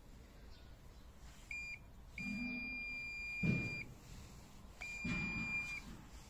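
Bosch D-tect 120 wall scanner beeping: a short beep, then a long steady beep of about a second and a half, then another beep of about a second. A sharp knock from handling the scanner comes near the end of the long beep.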